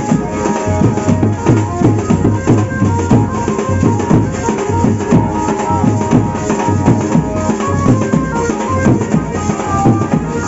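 Live village band music: a fast, dense beat on large hand-carried drums with a held melody line running above it, loud and unbroken.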